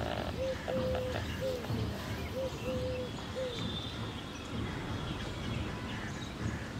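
A dove cooing in repeated three-note phrases, a short coo, a long held coo and a short coo, twice in the first three and a half seconds, then stopping. Steady low outdoor background noise runs under it.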